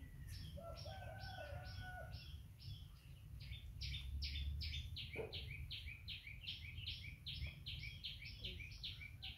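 A bird calling in a fast run of short, repeated down-slurred notes, about three to four a second, with a low rumble underneath.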